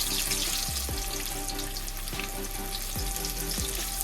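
Breaded chicken fried steaks deep-frying in peanut oil at 350 °F, a steady hissing sizzle.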